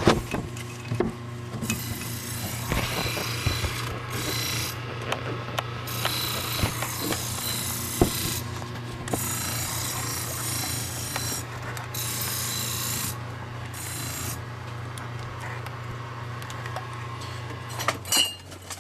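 Scraping of a tool being sharpened on a stone, in about four stretches of a few seconds each with short breaks between them and a few clicks, over a steady low hum.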